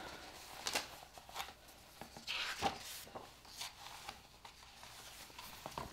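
Hardcover picture books being handled and swapped: faint rustling and rubbing with a few soft knocks.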